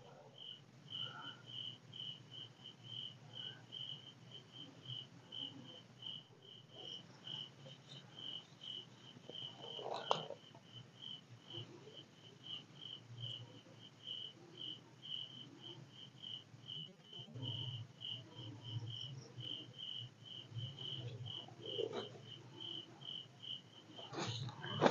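A cricket chirping steadily, one high note repeated evenly about two to three times a second, with a brief soft noise about ten seconds in.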